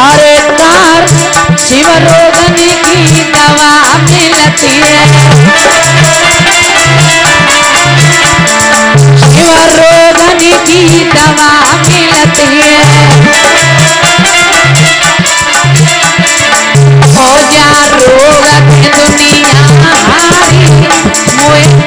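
Indian folk dance music without singing: a melody over a steady low drum beat, with fast jingling, rattle-like percussion.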